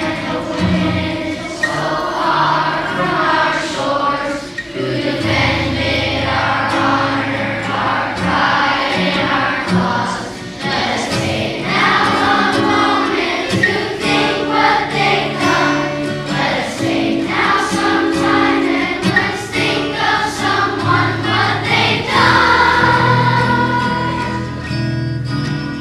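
A children's choir of schoolchildren singing a patriotic song in unison over an instrumental accompaniment.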